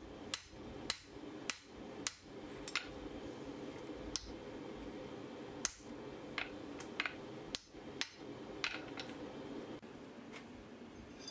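Light finishing hammer taps on a hot steel hardie cut-off tool, forged from a Ford Transit axle and held in tongs on the anvil: sharp strikes about every half second at first, then fewer and more spaced out. A steady low hum runs underneath and stops near the end.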